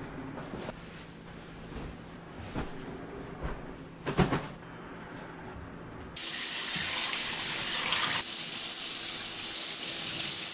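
A few soft rustles and thumps as bedding is handled. About six seconds in, a kitchen faucet comes on suddenly and runs steadily into a stainless-steel sink.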